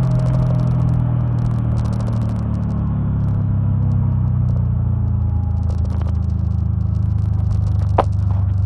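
Supercharged Subaru EJ25 flat-four running steadily, its engine note easing down slightly a couple of seconds in and then holding. A single sharp click sounds near the end.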